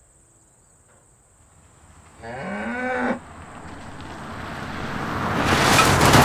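A single cow moo lasting about a second, coming a little over two seconds in, over a steady high insect trill that stops just after it. A rushing noise then swells up, loudest near the end.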